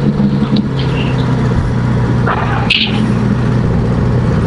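Motorcycle engine running low and steady as the bike rolls to a stop and idles, really loud, with the idle running high.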